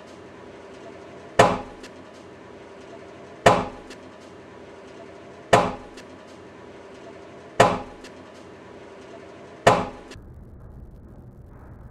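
Five sharp bangs of hydrogen–oxygen gas from electrolysis igniting, evenly about two seconds apart, each dying away quickly.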